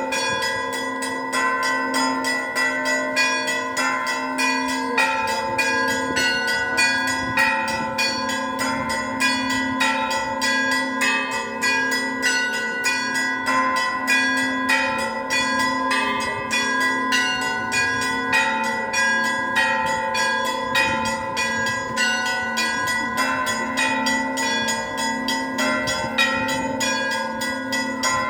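Orthodox church bells rung together in a continuous festive peal: small bells struck rapidly, several strikes a second, over the steady ringing of larger bells.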